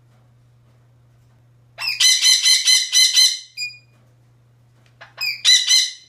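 Small parrot squawking: a rapid string of about eight harsh, shrill calls starting about two seconds in, then a shorter burst of three or four near the end.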